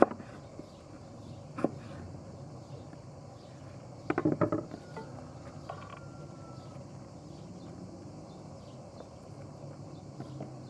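Kitchen knife slicing through a green apple and knocking against a wooden cutting board: a sharp knock at the start, another about a second and a half later, and a short run of quick knocks about four seconds in.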